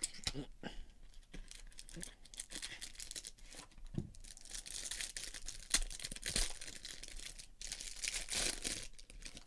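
Trading card pack being opened by hand: the cardboard pack box torn open and the clear cellophane wrapper around the cards crinkling as it is pulled and peeled, a dense crackle with a few sharp clicks, heaviest in the second half.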